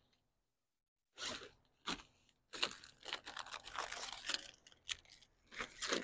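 Irregular crunching and rustling sounds close to the microphone. They start about a second in after a brief silence and keep coming in uneven bursts.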